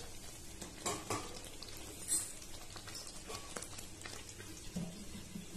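Chicken masala simmering faintly in an aluminium pan, with a few light metal clicks about one and two seconds in as an aluminium lid is set on the pan.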